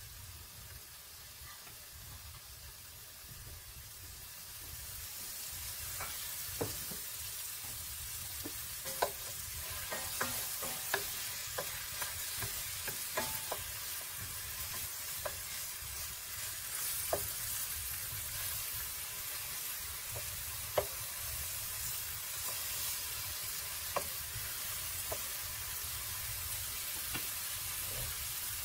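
Sliced green apples sizzling in a frying pan, the sizzle growing louder a few seconds in. A wooden spatula taps and scrapes against the pan many times as the slices are stirred and turned.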